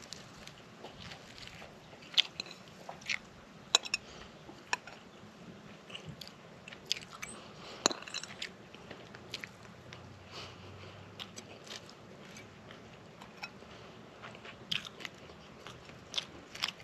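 A person biting and chewing crunchy pan-fried bluegill, with sharp irregular crunches among quieter chewing.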